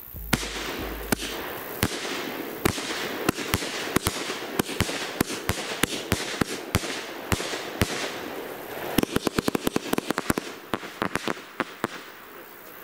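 A 49-shot multi-effect firework battery firing: sharp launch cracks and bursts about two a second with hissing between. From about nine seconds in comes a fast rattle of many cracks, which thins out near the end.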